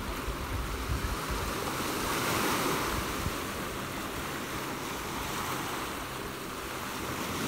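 Small ocean waves washing up onto a sandy beach at the water's edge, the surf swelling a little louder about two seconds in.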